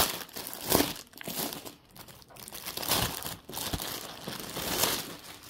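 Clear plastic packaging bag crinkling and rustling in irregular bursts as hands open it.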